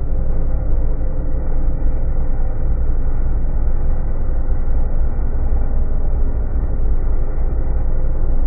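Polaris snowmobile running at a steady speed while towing a sled over a packed snow trail, heard from the sled behind it: a steady low rumble of engine and track.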